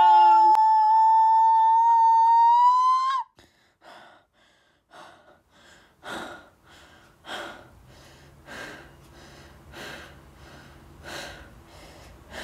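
A long, high-pitched cartoon voice cry, held on one note, rises slightly and cuts off abruptly about three seconds in. Then come faint short breath-like puffs, about one a second, over a low hum.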